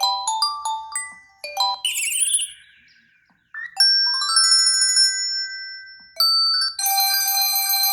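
A run of preloaded Google Pixel 3a ringtones, each starting as the one before is cut off. A bright mallet-like melody stops about a second and a half in. Then comes a sliding warbly tone, then after a short gap a chiming phrase, and from about six seconds a dense ringing chord pattern.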